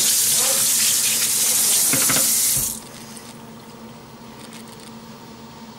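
Kitchen tap running into a stainless-steel sink over crabs, shut off abruptly about two and a half seconds in, with a couple of knocks just before it stops. After that only a faint steady hum is left.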